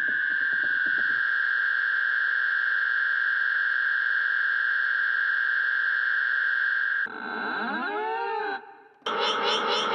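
A string of sound effects: a loud, steady, horn-like tone held for about seven seconds, then a few seconds of sweeping tones that rise and fall in pitch, then a rapidly warbling siren-like tone starting about nine seconds in.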